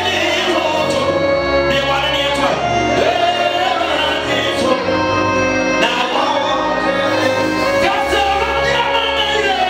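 Male gospel singer singing worship through a handheld microphone, holding long bending notes over steady instrumental accompaniment with a bass line.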